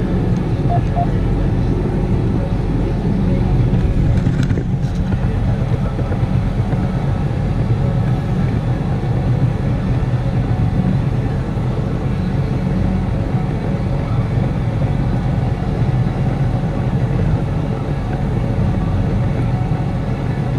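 Tractor diesel engine running steadily: a deep, even drone that holds the same pitch throughout.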